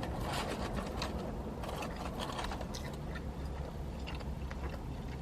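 Low steady hum inside a car, with faint soft clicks and rustles of someone eating.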